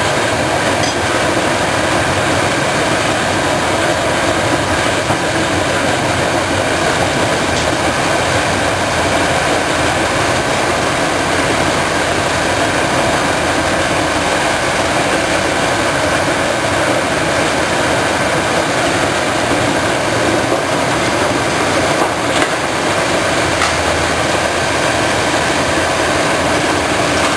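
Tracked Nordberg mobile crusher running under load, crushing demolition brick and concrete rubble: a loud, steady mechanical din of engine, crushing and clattering material, with an excavator working alongside.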